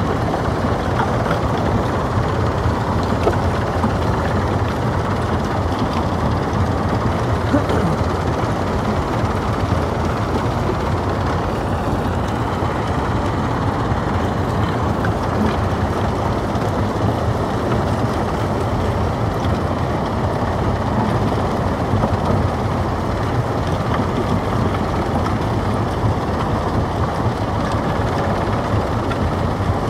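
Stone crusher machine running steadily while crushing rock, a continuous grinding with many small irregular cracks and knocks.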